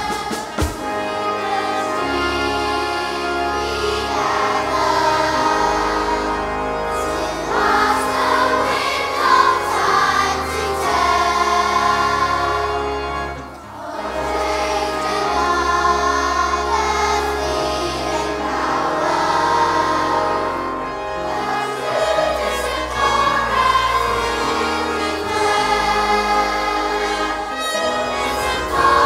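Large choir singing sustained chords with instrumental accompaniment, dipping briefly about halfway through before swelling again.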